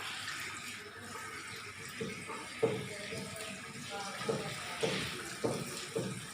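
Water running and splashing as a whole jackfruit is washed by hand, with several short knocks or splashes in the second half.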